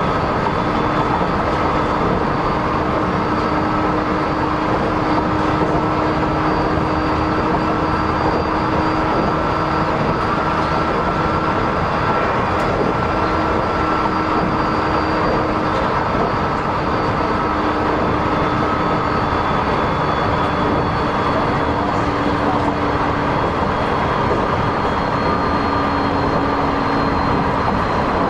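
Inside a JR East 209 series 2100 subseries electric train running between stations: a steady rumble of wheels on rail, with a faint hum that sinks slightly in pitch.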